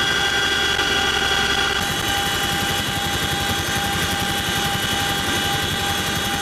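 CH-47 Chinook helicopter heard from inside, its twin turbine engines giving a steady whine of several high tones over the rotor noise. About two seconds in the sound shifts to a fast, even rotor beat.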